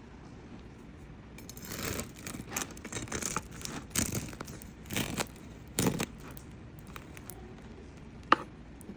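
Crisp crust of a homemade sourdough loaf crunching and crackling in a run of scraping strokes for about four seconds, followed by a single sharp click near the end.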